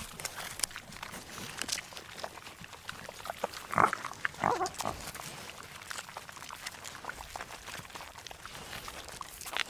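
Macaques calling: a few short calls about four seconds in, the loudest sound here, over scattered small clicks and rustles.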